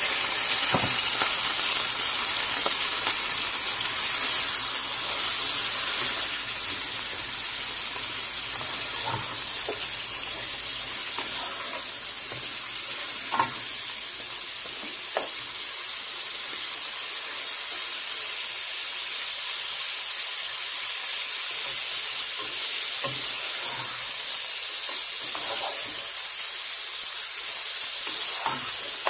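Raw mutton pieces sizzling steadily in hot oil with sliced onions, being seared, while a wooden spoon stirs them and knocks against the pan now and then, most sharply about halfway through.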